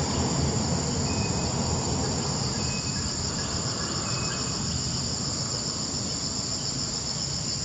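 Steady high-pitched insect chorus droning without a break, over a low background rumble.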